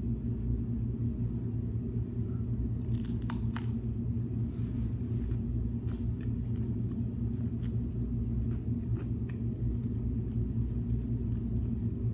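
A steady low rumble with faint scattered clicks and small mouth noises of someone eating, a few clicks bunched about three seconds in.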